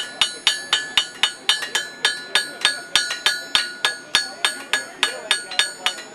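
Blacksmith's hammer striking hot iron on an anvil in a steady rhythm of about three to four blows a second, each blow leaving a bright metallic ring.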